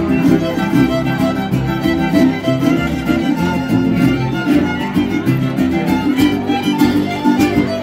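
Mariachi band playing live: several violins carry the melody together over a plucked guitarrón bass line.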